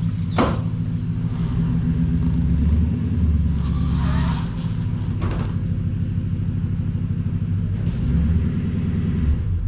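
Truck engine running at low speed while towing a tandem-axle boat trailer forward and back, with a few short knocks and a brief creak about four seconds in; it cuts off suddenly at the end. This is a test of the trailer's newly installed Dexter EZ-Flex suspension for the crackle and squeak that tandem axles make when backed.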